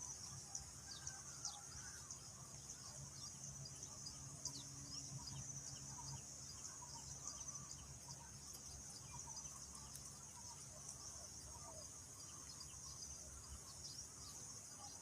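Faint outdoor ambience: a steady high-pitched insect chorus, like crickets, with scattered short bird chirps and a low hum underneath.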